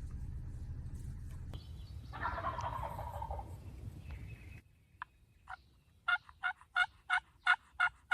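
Wild turkey sounds: a short rattling call about two seconds in over a steady low rumble, then, after the rumble cuts off, a run of about nine short, evenly spaced yelps, roughly three a second, loudest near the end.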